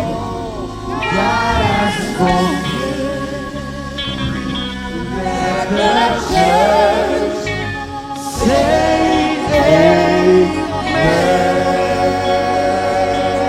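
Live gospel worship music: singing voices over a sustained instrumental backing with steady low bass notes.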